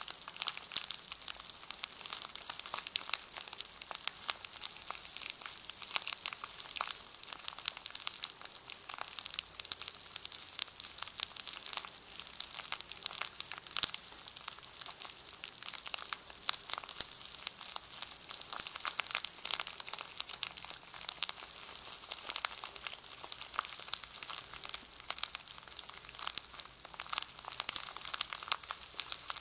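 A brush in its packaging being handled: continuous crinkling and crackling of the wrapper, with many small crackles packed close together.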